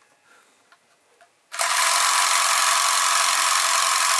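Mechanism of an AKS-1r 35 mm film camera (Soviet copy of the Bell & Howell Eyemo) starting abruptly about a second and a half in and running with a loud, steady whir. It runs evenly, the sign of a camera drive working properly after repair. Before it starts there are only faint handling clicks.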